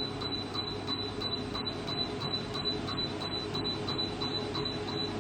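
Laser hair removal machine beeping in an even stream, about three short high beeps a second, as the laser fires pulse after pulse over the skin. A steady low machine hum runs underneath.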